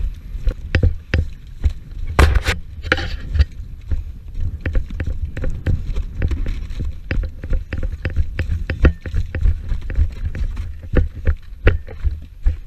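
Irregular knocks, clicks and rubbing picked up by a helmet-mounted GoPro as the wearer moves, over a heavy low rumble, with a louder noisy stretch about two to three seconds in.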